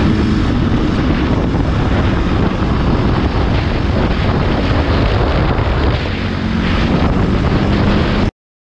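Wind buffeting a motorcycle-mounted camera microphone at about 40 mph, with the motorcycle's engine running underneath. The sound cuts off suddenly near the end.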